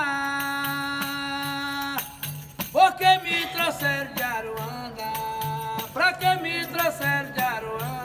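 A man singing a capoeira song. He holds one long note for about two seconds, then goes on with the melody, over a berimbau, the jingles of a pandeiro and a steady low drum beat.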